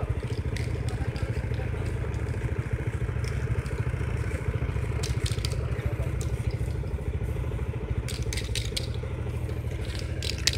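Motorcycle engine idling close by, a steady low rumble with a fast even beat. Short hissy bursts come in twice, about five seconds in and again around eight to nine seconds.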